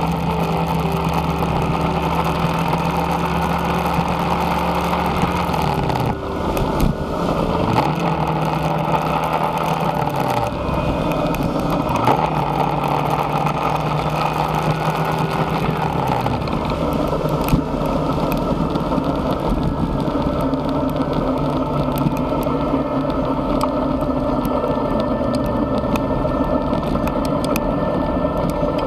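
Motorcycle engine running under way, its pitch dipping and climbing back three times as the throttle is eased off and opened again.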